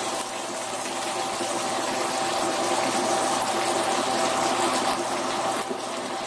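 Chicken pieces frying in a pan on an induction cooktop: a steady sizzling hiss over a constant hum with several steady tones.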